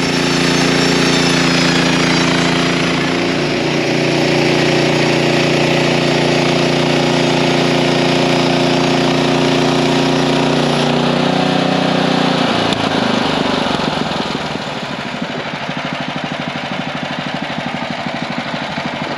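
Gas engine of a portable bandsaw sawmill running under load as its band blade cuts a board off a spruce log. About two-thirds in, the steady engine tone breaks up into a rougher, pulsing sound and eases a little.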